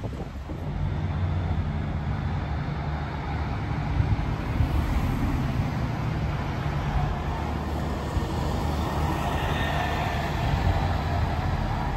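City bus engine running as the bus pulls past and away: a steady low drone, with a faint higher whine joining about nine seconds in.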